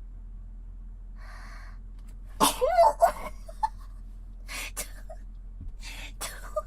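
A woman's loud sneeze about two and a half seconds in, set off by an itchy nose, after a sharp intake of breath. Softer bursts of breath follow.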